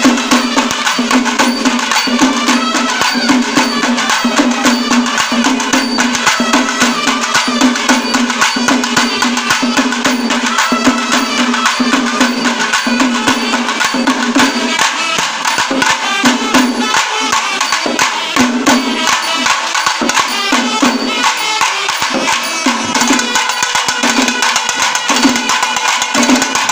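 A Kerala temple-festival ensemble plays: barrel drums beaten with sticks in a fast, dense rhythm, and a row of horns blowing short repeated notes over them.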